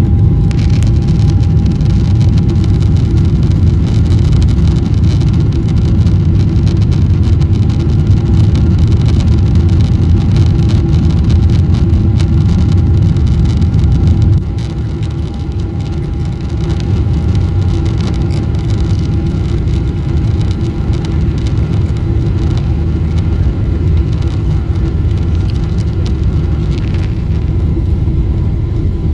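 Steady engine and road noise of a moving car, a loud low rumble with a faint steady hum over it; it gets a little quieter about halfway through.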